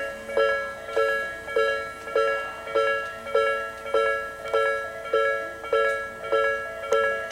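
Japanese railway level-crossing warning bell, the electronic Tobu Nikko Line type, ringing at its slow tempo: a ringing ding that fades after each strike and repeats evenly, a little under twice a second. It signals that the crossing is closed for an approaching train.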